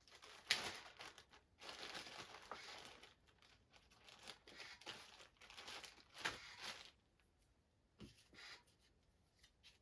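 Crinkling and rustling of a bag being handled in a run of irregular bursts, which die down to a few faint scrapes after about seven seconds.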